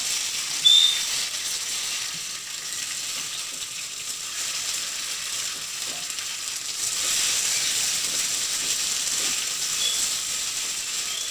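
Hot oil tempering sizzling steadily in a steel kadhai as pieces of dhokla are stirred through it with a spoon. A brief high squeak comes about a second in.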